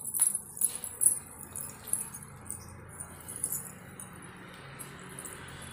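Light metallic jingling in a string of irregular shakes, loudest in the first second and again about two and three and a half seconds in.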